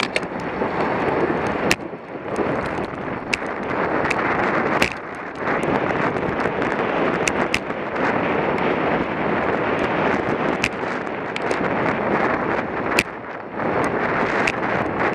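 Wind rushing over the microphone of a camera on a racing bicycle at speed, easing briefly a few times. Scattered sharp clicks and knocks run through it, typical of the camera mount jolting over the road surface.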